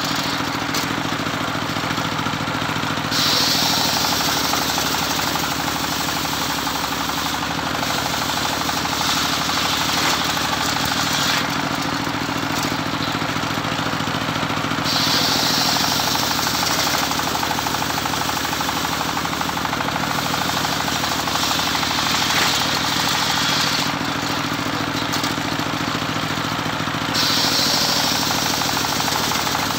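Homemade circular saw rig running steadily, sawing teak. Three times, about every twelve seconds, the sound gets louder and gains a higher hiss as the blade cuts through the wood for a few seconds, then drops back to the machine's drone.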